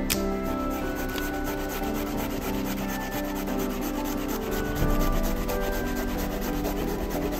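A knife blade scraping quickly and repeatedly down the bark of a tree trunk, bark flakes rasping off, in a quick, even rhythm of strokes.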